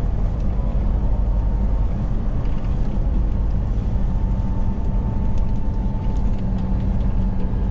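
Tractor-trailer truck cruising on the highway, heard from the cab: a steady engine drone with road noise, plus a faint steady whine through the middle.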